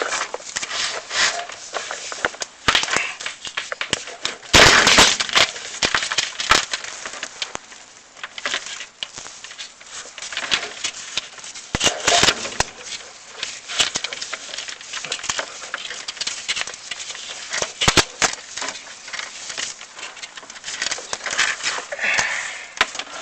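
Chimney inspection camera scraping and knocking against the glazed flue walls as it is fed down the chimney, a steady run of irregular clicks, scrapes and rattles. The loudest clatter comes about five seconds in and again about twelve seconds in.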